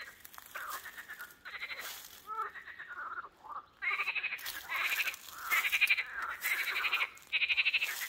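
A chorus of pond frogs calling: many rattling croaks overlapping one another, growing louder about halfway through.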